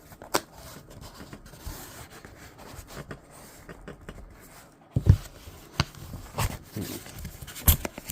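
A knife scraping and scoring at a sealed cardboard box, with rustling and a few sharp knocks of the box being handled, the loudest about five seconds in, again at six and a half, and near the end.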